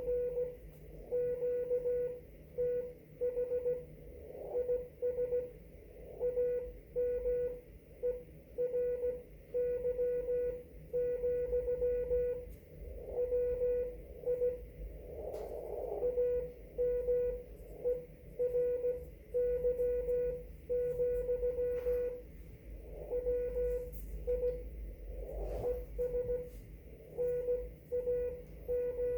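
Amateur radio Morse code (CW) on the 30-meter band: a single mid-pitched tone keyed on and off in dots and dashes at a steady sending pace, over a bed of band hiss with a few faint static clicks.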